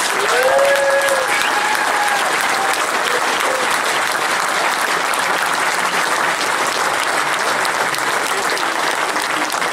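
Large crowd applauding and cheering steadily, with a few held shouts of cheer standing out over the clapping in the first three seconds.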